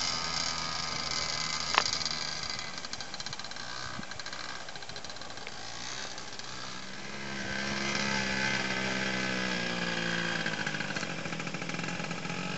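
Small youth quad (ATV) engine running as the child rides it, its note rising about halfway through, holding, then dropping back. A single sharp click sounds near two seconds in.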